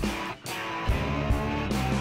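Background music led by guitar, with a steady beat.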